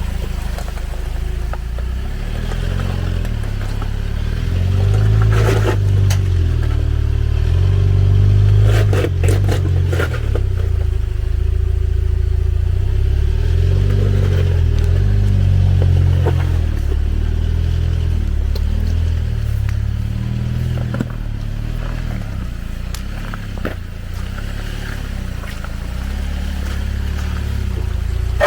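Jeep engine running at low revs, its pitch rising and falling as the throttle is worked, with a few sharp clatters and knocks about five to ten seconds in.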